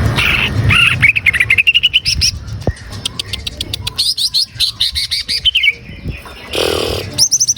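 Greater green leafbird (cucak ijo) song: fast strings of short, sharp chirps that climb in pitch, then a falling run of notes and a quick high flurry near the end.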